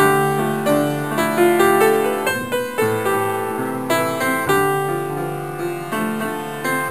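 Instrumental piano music, single notes and chords struck one after another and fading away.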